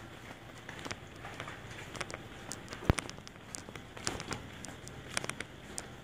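Footsteps of a person walking, with scattered light clicks and one sharp click about three seconds in.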